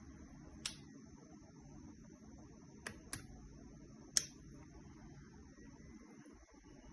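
Four short, sharp clicks, two of them close together, over a faint steady background hum and a high, thin steady tone.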